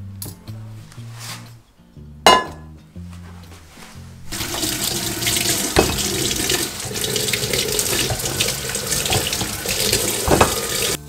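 A single sharp clink of a glass jar about two seconds in. From about four seconds, tap water runs into a stainless steel bowl as lemons are rinsed, with a couple of knocks of the lemons against the bowl.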